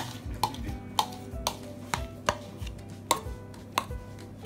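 Metal spoon clinking against a ceramic bowl while stirring and folding beaten egg white into thick pancake batter. The sharp clinks come unevenly, about twice a second.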